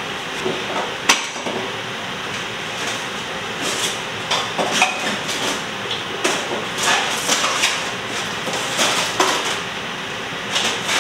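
Irregular knocks and clatters, a sharp one about a second in and then more frequent ones, over a steady hiss.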